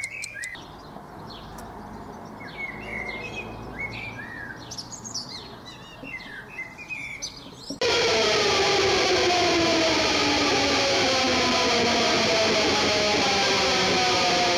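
Birds chirping with short, quick notes over a low background rumble. About eight seconds in, loud music cuts in suddenly: a dense, sustained guitar-like chord whose tones slowly fall in pitch.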